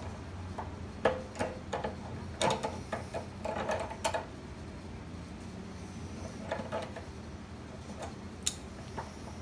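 Small metal clicks and clinks of hand tools and lock hardware being handled: several quick runs in the first four seconds, a few more around six to seven seconds in, and one sharp click near the end.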